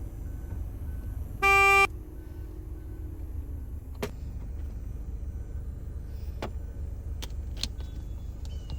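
A single loud electronic beep, about a third of a second long, about one and a half seconds in, over a steady low rumble. Several sharp clicks follow later.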